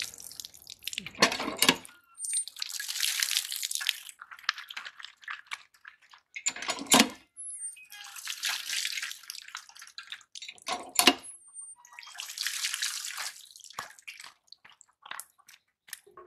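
Water from a hand-pump tube well gushing in surges over fish pieces in a plastic basket and splashing onto the ground, four surges in all, with three sharp loud knocks between them.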